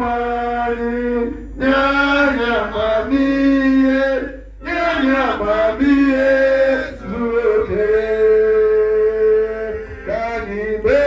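A man singing a chant into a handheld microphone, in phrases of long held notes with short breaks between them.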